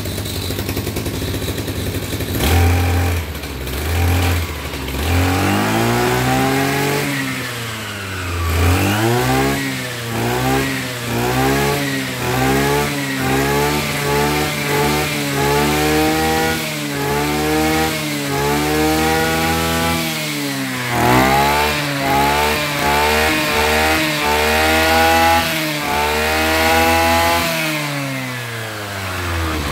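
Tanaka TBC-270 brush cutter's 27 cc two-stroke engine idling, then revved up and down in quick throttle blips, about one a second, and dropping back to idle near the end. The engine picks up sharply on the throttle.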